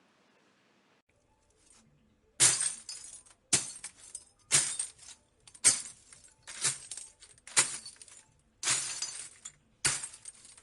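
Glass breaking eight times in a row, about one a second: each is a sharp crash followed by a short tinkle of falling shards. The first comes about two seconds in, after near silence.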